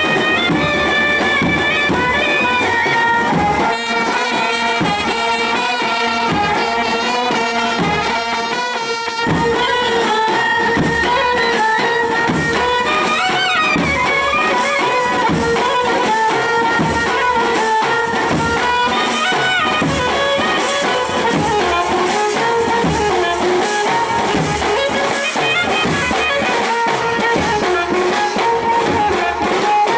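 Indian street brass band playing live: brass horns carry a held melody over a steady beat from shoulder-slung side drums.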